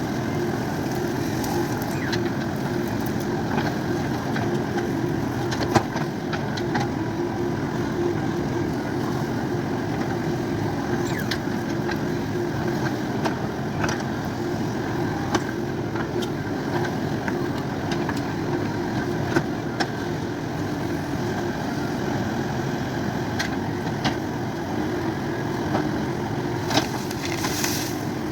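JCB 3DX backhoe loader's diesel engine running steadily, with occasional sharp knocks.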